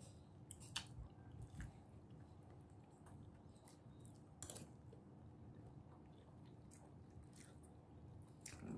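Faint chewing and wet mouth sounds of a person eating fish by hand, with a few soft lip smacks and clicks scattered through, the clearest about halfway.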